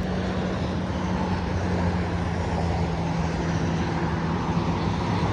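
Car running with a steady low engine hum and road noise.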